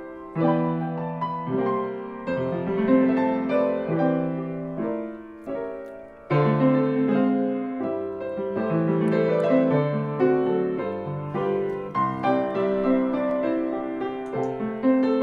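Solo piano playing a gentle melody over chords, phrase by phrase, with a brief dip about six seconds in before the next phrase begins.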